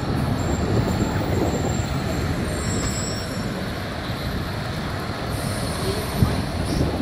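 Street traffic at a busy intersection, dominated by the low running noise of a heavy diesel truck, a concrete mixer, close by. Faint thin high squeals come now and then in the first half, and a short sharp knock comes about six seconds in.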